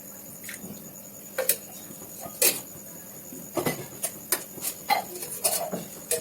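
Kitchen prep sounds: irregular sharp clicks and knocks of utensils and dishes, a few of them louder, over a faint steady hiss.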